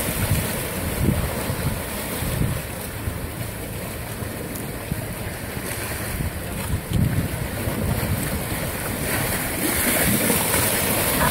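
Small sea waves washing and splashing over a flat rock shore, with gusts of wind buffeting the microphone.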